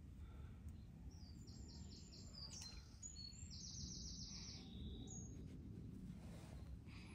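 Faint songbird singing: a run of quick high chirps about one and a half seconds in, then a rapid high trill a second or so later, over a low steady background hum.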